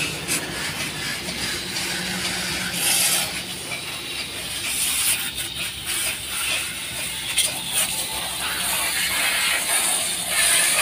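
Pressure-washer jet spraying water against a truck's wheels and chassis: a continuous hissing spray that varies in strength.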